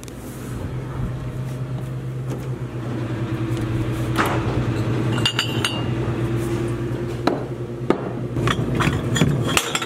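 Grocery-store ambience: a steady low hum with scattered knocks and clinks, and a short high tone about five seconds in.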